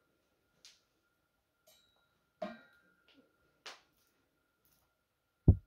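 A few scattered faint clicks and soft knocks, one more distinct about two and a half seconds in, then a single loud low thump near the end, over a faint steady high-pitched tone.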